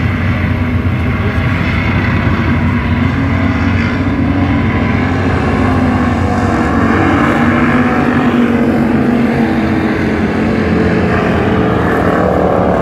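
Hobby stock race car engines running on a dirt oval, a loud steady drone.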